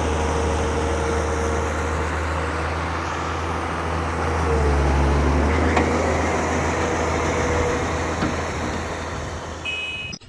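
A motor vehicle's engine running steadily with a low drone, fading near the end. A short electronic beep sounds just before it cuts off.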